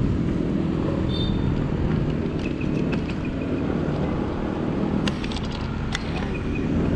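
Steady rumble of road traffic and vehicle engines on a city street, with a few sharp clicks and brief faint high tones.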